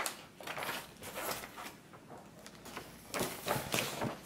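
Plastic packaging wrap rustling and crinkling in short, irregular bursts as it is handled, busiest near the end.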